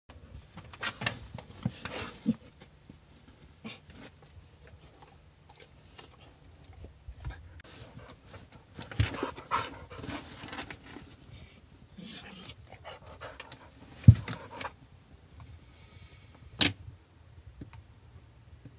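Brittany bitch in labour, breathing and panting irregularly, with some rustling, and two sharp knocks about two-thirds of the way through.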